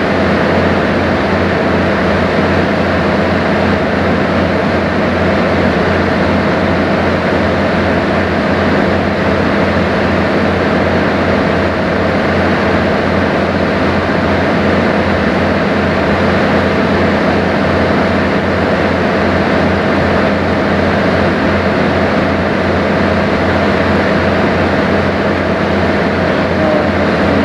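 Sightseeing boat's engine running steadily under way, a constant low hum over an even rushing noise.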